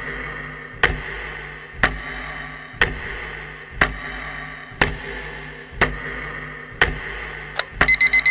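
Clock-like ticking, one sharp tick a second, counting down the time to guess. It ends near the end in a quick run of four bell-like rings.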